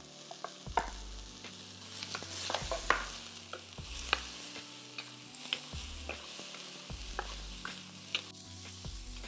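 Diced carrot and asparagus sizzling in oil in a hot carbon steel wok while a wooden spatula stirs them, with frequent short clicks and scrapes of the spatula against the pan.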